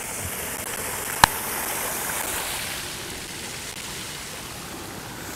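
Fountain water splashing in a steady rushing hiss, a little louder in the middle, with one sharp click a little over a second in.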